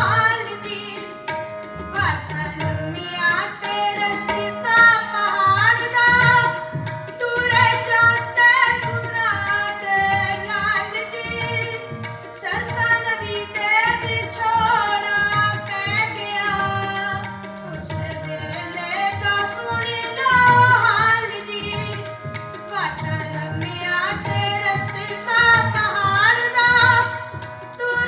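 Sikh kirtan: a voice singing a Punjabi devotional poem to harmonium, with tabla keeping a steady beat underneath.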